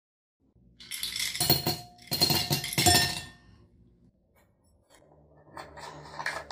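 Ice cubes dropped into a stemmed wine glass, clinking and clattering against the glass in two quick rushes, about one and two seconds in.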